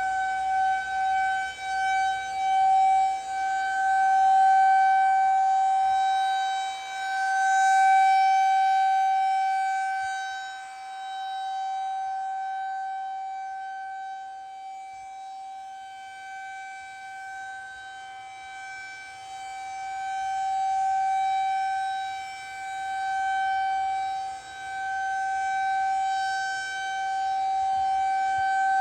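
Federal Signal 2001-SRN tornado siren sounding its monthly test on a steady tone, without changing pitch. Its loudness swells and fades in slow waves as the rotating siren head turns.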